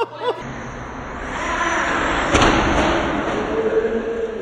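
Traxxas Hoss RC monster truck's electric motor whining as it speeds up for a jump, with a sharp knock about halfway through as it launches off the ramp. The whine settles into a steady tone near the end while the wheels spin free in the air.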